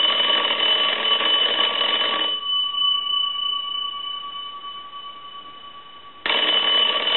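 Telephone ringer bells in a wooden wall crank bell box ringing from a line analyzer's ring cycle, the final check that the converted box rings on line ringing voltage. A ring of about two and a half seconds dies away over a pause of about four seconds, and the bells start ringing again near the end.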